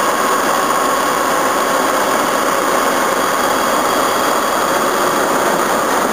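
Diesel engine of an SNCF BB 69400 diesel-electric freight locomotive running steadily as the locomotive rolls slowly past, with a steady high whine over the engine noise.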